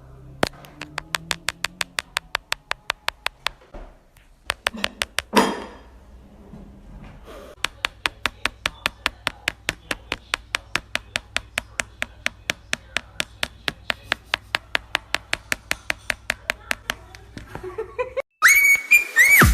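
Rapid, evenly spaced tapping, about five taps a second, in two long runs with a short pitched call between them; loud electronic dance music cuts in near the end.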